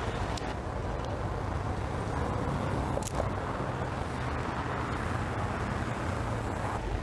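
Steady rumble of road traffic and vehicle engines, with a sharp click about three seconds in.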